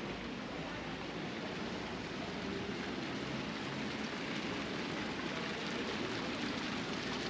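Steady city street ambience: an even wash of noise with no distinct events standing out.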